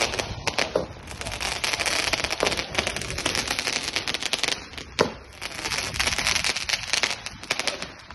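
Diwali aerial 'shots' fireworks going off in quick succession: dense crackling made of many sharp pops over a steady hiss, with one louder crack about five seconds in. The crackling dies away near the end.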